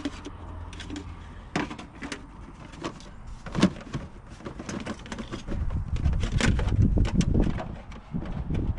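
Scattered clicks and knocks of parts being handled and refitted in a van's engine bay, with one sharp knock about three and a half seconds in and a low rumble near the end.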